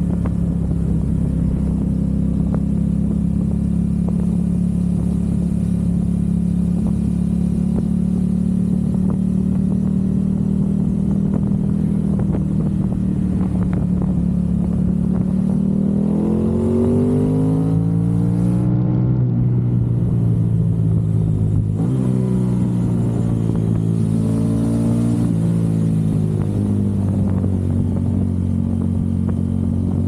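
Aprilia RS 660 parallel-twin engine through a Mivv Delta Race aftermarket exhaust, heard from on the bike while riding. It cruises at steady revs, then about halfway the revs climb, drop sharply once in a quick upshift, climb again and ease back to a steady cruise near the end.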